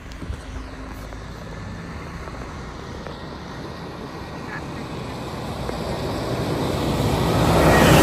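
A fire engine driving past close by. Its engine noise builds steadily as it approaches and is loudest as it passes near the end.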